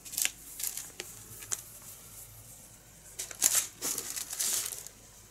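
Cotton fabric and its clear plastic wrapping rustling and crinkling as a folded fabric piece is handled and opened out. The rustle comes in a few short spells, busiest between about three and five seconds in.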